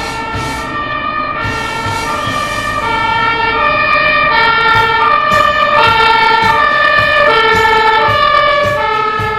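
A Dutch fire engine's two-tone siren, switching back and forth between a high and a low note about every half second. It grows louder as the fire engine approaches and passes close by.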